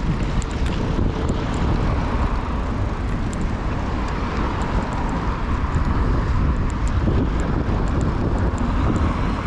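Steady wind rumble on the microphone and rolling road noise from a bicycle riding along a paved street, with faint high ticks now and then.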